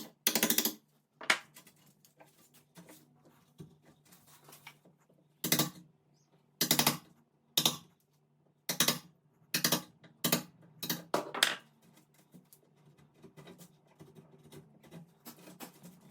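Hammer tapping a wood chisel, a series of sharp irregular knocks, some in quick pairs, as the corners of a routed latch recess in a door edge are cleaned out.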